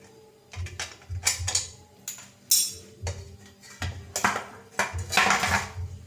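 Metal tools and parts clinking and knocking irregularly, with dull thumps, as a washing machine gearbox is taken apart by hand.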